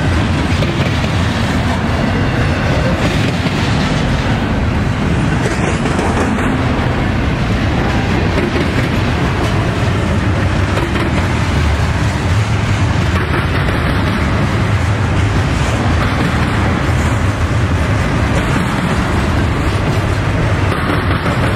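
Norfolk Southern double-stack intermodal freight train rolling past at close range: a loud, steady rumble of steel wheels on rail.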